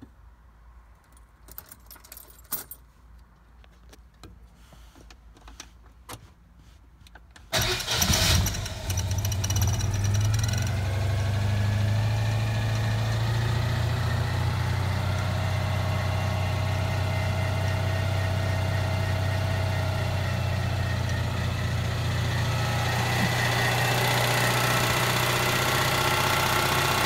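Citroën 2CV's 602cc air-cooled flat-twin engine on a cold start after two weeks standing: a few faint clicks, then about seven and a half seconds in it turns over and catches, runs louder for a second or two, and settles into a steady idle.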